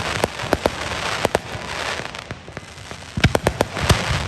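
Fireworks going off: an irregular string of sharp bangs and pops over a crackling hiss, with a quick cluster of bangs about three seconds in.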